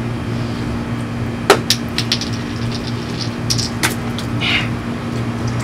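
Plastic water bottle being opened and chugged: sharp clicks and crinkles of the cap and bottle, with a short gush near the end, over a steady low mechanical hum.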